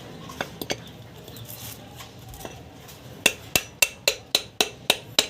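Light metal-on-metal taps, a couple at first and then a steady run of about four a second from about three seconds in, each with a short ring, while the alternator bearing is being replaced.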